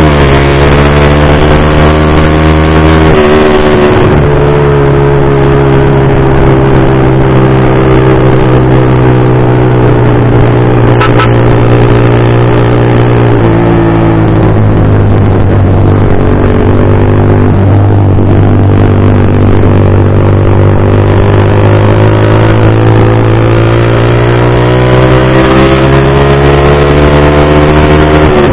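Yamaha Vixion R's single-cylinder engine running through a Pro Liner TR1 full-system aftermarket exhaust while riding. Its pitch drops sharply about three seconds in and again near the middle, then climbs steadily as the bike accelerates.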